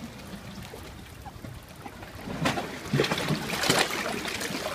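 Seawater lapping and trickling against a concrete sea wall, with a few louder sloshing surges near the middle.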